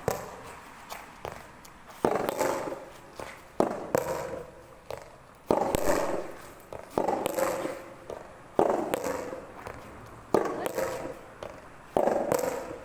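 Soft tennis balls struck by rackets in a rally, a sharp pop every one to two seconds, each hit joined by a player's shout.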